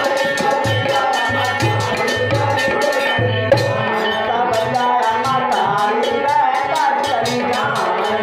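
Instrumental interlude of a Hindi devotional bhajan: a steady, fast drum rhythm with a melody line playing over it and no singing.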